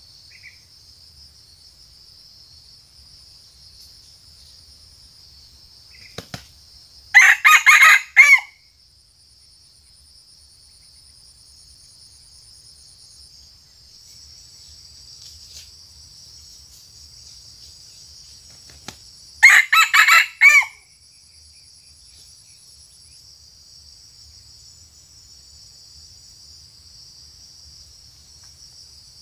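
Red junglefowl rooster crowing twice, about twelve seconds apart, each crow short and broken into several choppy notes. A steady high-pitched insect drone runs underneath.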